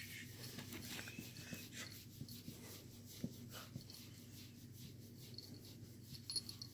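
Two dogs play-wrestling, heard faintly: soft mouthing, scuffling and breathing, with a couple of brief high squeaks near the end.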